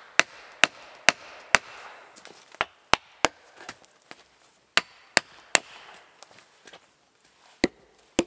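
An axe hammering a wooden shim back into a log wall: sharp wooden knocks, about two a second, in runs of three or four with short pauses between them.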